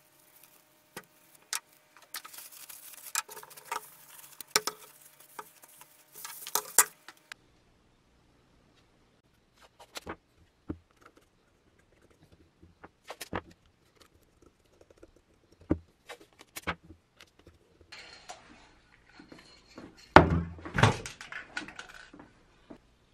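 Sandpaper rubbed by hand over the black base coat of a metal helmet: scratchy sanding strokes with many sharp clicks for the first several seconds. Then come scattered clicks and knocks as the painted metal parts are handled, and a heavier thump about twenty seconds in.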